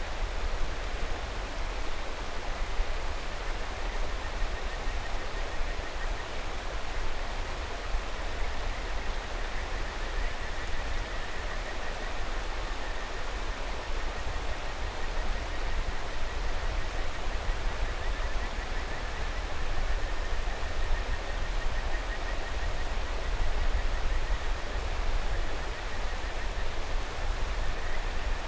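Mountain river rushing steadily, with a low rumble underneath. Kajika frogs (Buergeria buergeri) call faintly over it in a high, pulsing trill, most clearly through the middle and again near the end.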